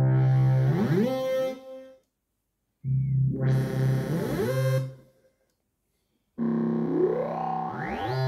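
Korg Kaossilator Pro+ synthesizer playing bass programs from its touch pad, in three short phrases separated by silence, one for each of three presets stepped through in turn. Each phrase holds a low note and then slides upward in pitch.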